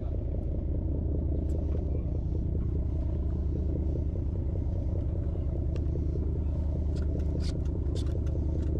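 Steady low drone of the sportfishing boat's engine running, with a few sharp clicks near the end.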